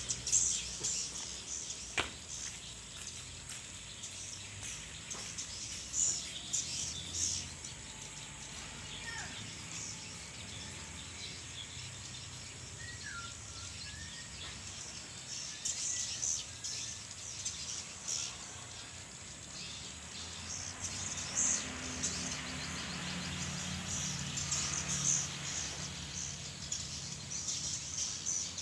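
A small bird singing and chirping in short, high-pitched bursts at irregular intervals, over a steady low background hum.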